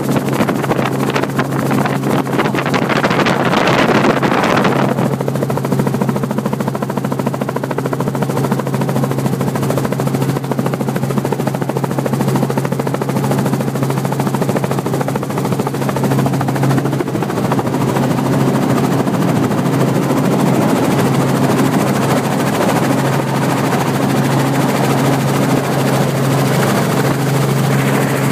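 Helicopter engine and rotor running, a steady loud drone with a constant low hum. A louder rushing hiss sits over it for the first few seconds and stops about five seconds in.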